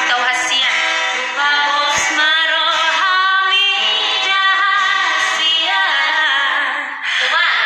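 Two women singing a song together to an acoustic guitar.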